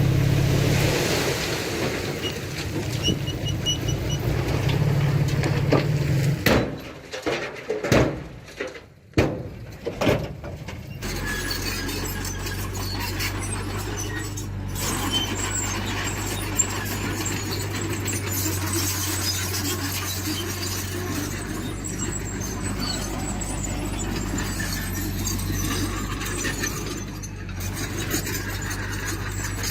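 Diesel engine of heavy earthmoving machinery running steadily, with squealing over it. The sound breaks up with sharp cuts a few seconds in, then the engine settles into a steady lower running note.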